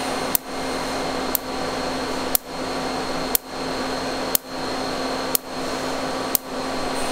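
Pulsed laser ablating a bone sample, a sharp snap from each pulse's plasma about once a second, over a steady machine hum.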